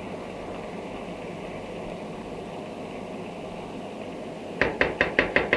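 Tomato and onion stew simmering in a frying pan on a gas burner, a steady low hiss. Near the end a plastic spoon starts stirring it, knocking quickly and regularly against the pan.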